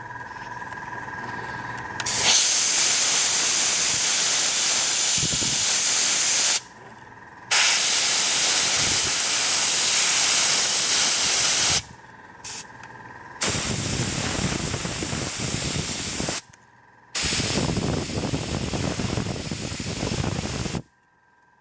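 Dual-action, gravity-feed airbrush spraying paint: four long bursts of hiss, each about three to four seconds with short pauses between, and a brief puff around the middle. A faint steady whine is heard in the pauses.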